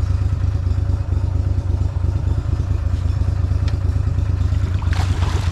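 Small fishing boat's motor running steadily with a low rumble, with a few light clicks and knocks near the end.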